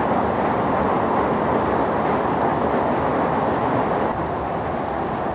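Fast-flowing muddy floodwater rushing along a flooded street: a steady rushing noise from a river that has overflowed its banks.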